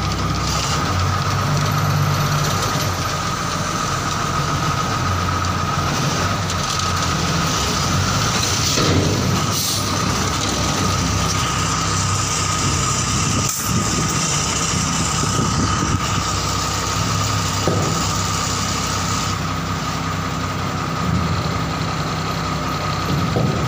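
TATA 2518 tipper truck's diesel engine running steadily while the body is tipped up to unload, with a thin steady high whine throughout.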